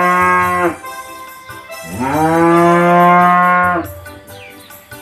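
A cow mooing twice. The first call ends less than a second in. The second is a long, steady moo of about two seconds that rises in pitch at its start.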